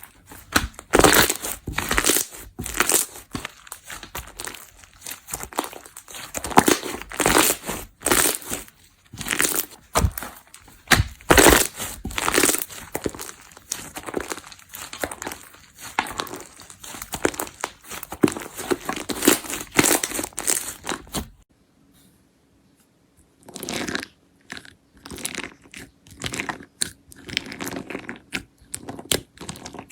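Slime being squeezed and stretched by hand, making a dense run of crackling, popping clicks. There is a brief break about two-thirds of the way through, then softer popping.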